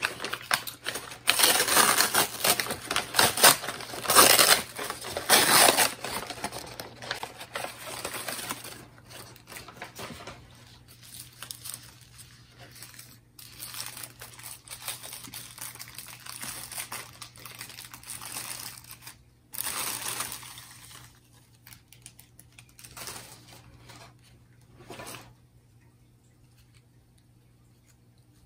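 Brown paper bag and thin plastic sleeve crinkling and rustling as a potted plant is pulled out and unwrapped. The handling is busiest over the first several seconds, then comes in scattered rustles that die away near the end.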